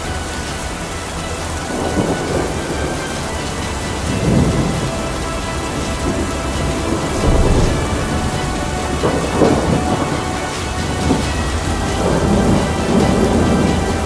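Steady rain with several long rolls of thunder swelling and fading, over a faint sustained musical drone.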